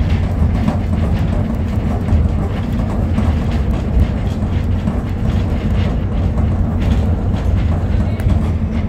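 Road noise inside a moving car at speed: a steady low rumble of tyres on asphalt and engine drone.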